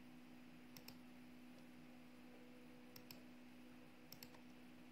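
Faint computer mouse clicks: three pairs of quick clicks, over a low steady hum.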